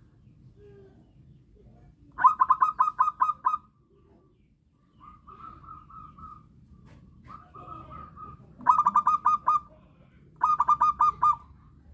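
Zebra dove (perkutut) cooing: three quick runs of rapid staccato coos at one pitch, with two shorter, smoother held coos between them.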